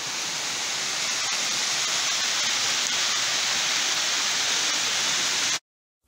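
Waterfall pouring into a pool, a steady, even rush of water that cuts off abruptly shortly before the end.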